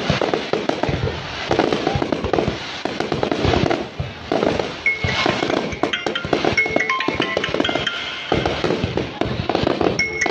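Fireworks display: a rapid, continuous run of bangs and crackling as aerial shells and rising comets are fired and burst. Music plays along, and from about five seconds in a melody of held high notes rises above the bangs.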